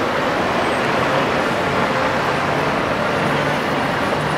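Steady noise of a passing road vehicle and traffic, with a low engine hum.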